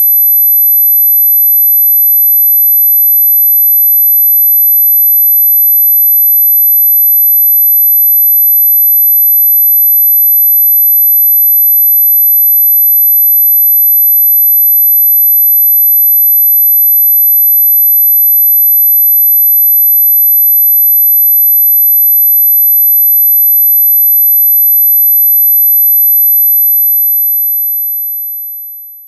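A steady 12 kHz pure sine tone, a tinnitus-masking tone, fading out over the last three seconds or so.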